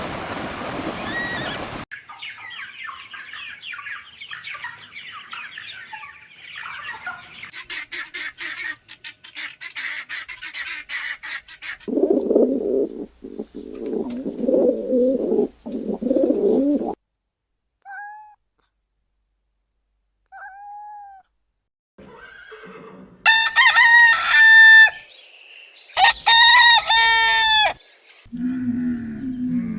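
A run of farmyard animal calls: dense high bird chatter for several seconds, then lower clucking from chickens and two short chirps, then a rooster crowing twice near the end. A cow's low moo begins right at the close.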